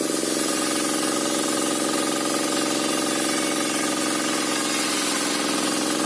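Engine-driven homemade circular saw bench ripping a board of waru wood: the engine runs steadily under load while the blade cuts with a steady hiss.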